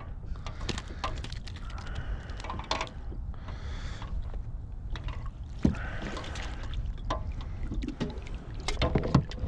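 Water splashing and dripping off a landing net with a fish in it, with scattered knocks and rattles of gear against a plastic kayak. A steady low wind rumble on the microphone runs underneath.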